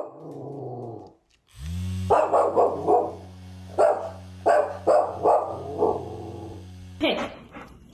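A dog barking at a spinning handheld mini fan: about ten short barks in two quick runs, over the fan motor's steady low hum.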